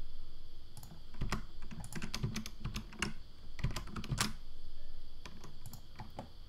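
Computer keyboard keys clicking in irregular, quick presses with short pauses between them.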